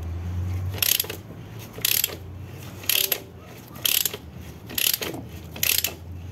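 Ratchet wrench clicking in six short bursts, about once a second, on its back-swings as it turns a bolt threaded into a Turbo-Hydramatic 350 transmission's oil pump, used as a jacking bolt to push the pump out of the case.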